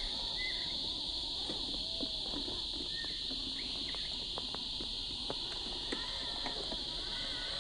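Steady, high buzzing drone of summer insects, with a few short chirps and scattered faint clicks and taps.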